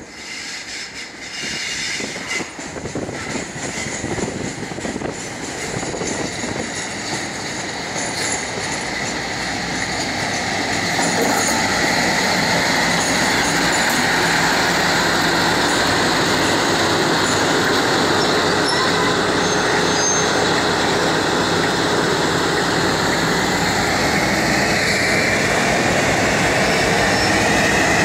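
Diesel-hauled train of Class 56 and Class 69 locomotives dragging a Class 458 electric unit, growing louder over the first ten seconds as it approaches and then passing close and loud. Wheels squeal thinly and high on the curved track, over the rumble of wheels on rail and the locomotives' diesel engines.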